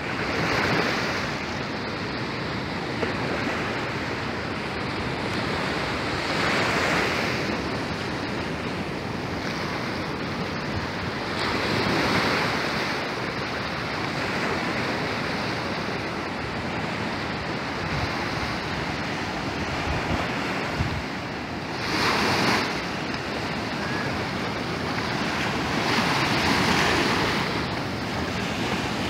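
Ocean surf breaking and washing up a sandy beach: a steady rushing hiss that swells about five times as waves come in.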